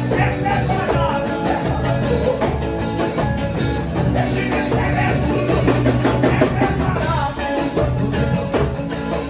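Live church worship music: drums played in a steady rhythm under singing voices.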